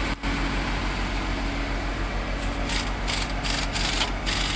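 Engine running steadily, with a series of short, hissing, rasping bursts starting about halfway through.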